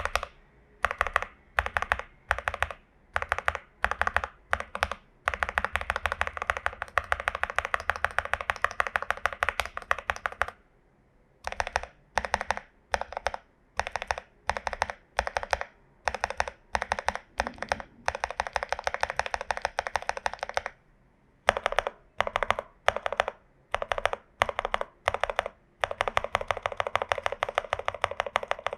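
Typing on a Glorious GMMK Pro mechanical keyboard with a tape mod, lubed and filmed Prevail Epsilon switches and PBT dye-sub keycaps. Short bursts of keystrokes with brief pauses alternate with longer spells of fast, continuous typing.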